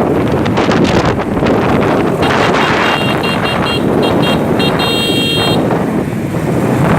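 Vehicle horn honking in a quick run of short toots and then one longer blast, over heavy wind noise on the microphone and street din.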